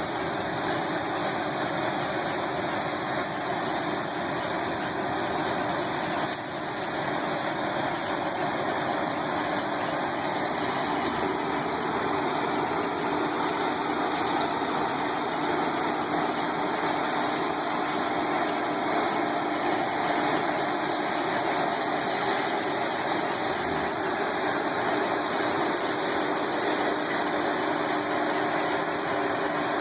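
Farm tractor engine running steadily, with a brief dip in level about six seconds in.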